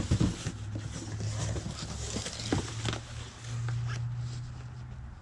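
Carded action figures being handled and shuffled: plastic blister packaging rustling and clicking with several sharp knocks, over a steady low hum.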